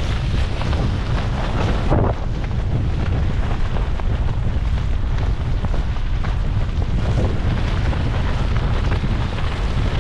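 Strong wind buffeting the microphone in a heavy rainstorm, a steady low rumble with a crackling spatter on top, and a brief louder gust or thump about two seconds in.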